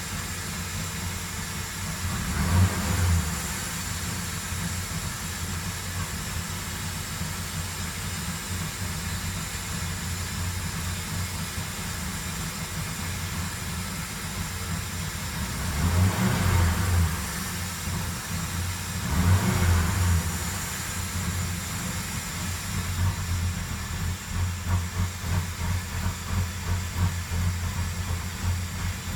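2007 Ford Crown Victoria's 4.6-litre V8 running steadily, with three brief swells in level, one early on and two about two-thirds of the way through. Near the end the sound takes on an even, rhythmic pulsing.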